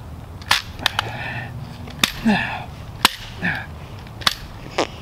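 A Remington 870 pump shotgun, chamber loaded and safety on, being struck hard against a wooden tree stump: about six sharp, irregularly spaced knocks. This is a drop-safety test, and the chambered primer-only 12 gauge shell does not fire.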